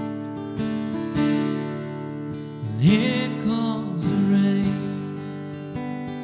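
Acoustic guitar strumming chords, played live, with a note sliding up about three seconds in.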